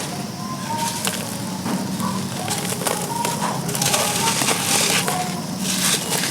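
Dry, gritty chunks of charcoal being crushed and crumbled: a dense, continuous gritty crackling, louder for a stretch about four to five and a half seconds in.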